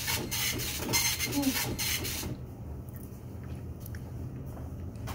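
A really old office printer printing in a quick run of rasping strokes for about the first two seconds, then stopping, over a steady low hum.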